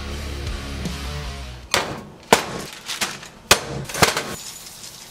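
Background music for the first couple of seconds, then it cuts off and about six sharp clinks and knocks follow as kitchen items are handled and set down around a glass bowl, with plastic-bag rustling between them.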